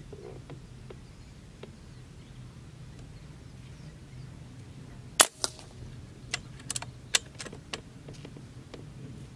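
Artemis M22 pre-charged pneumatic air rifle firing a shot about five seconds in: one sharp, loud crack, with a fainter crack a quarter second after it. A string of smaller clicks and snaps follows over the next two and a half seconds.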